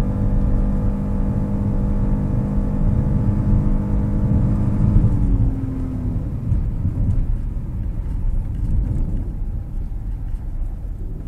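Car engine running at a steady speed, heard from inside the cabin over a low road rumble. About five seconds in the engine note dips in pitch and fades, as if the throttle is lifted, leaving mostly the low rumble of the car rolling on.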